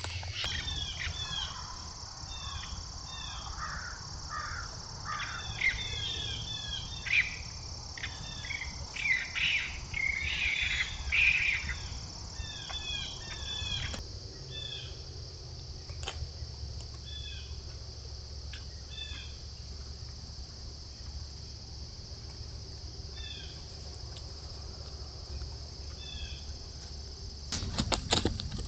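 Small birds chirping in short repeated notes, busy for the first half and then thinning to scattered calls, over a steady high insect drone. A quick run of clicks or rustles near the end.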